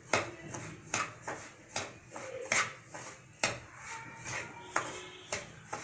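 Metal spatula scraping and knocking against the pan as dry semolina is stirred and roasted, in irregular strokes about one or two a second.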